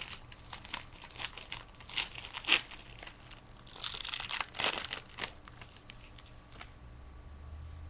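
A Yu-Gi-Oh booster pack's foil wrapper being torn open and crinkled in the hands: a run of sharp crackles and rips that thins out after about five seconds.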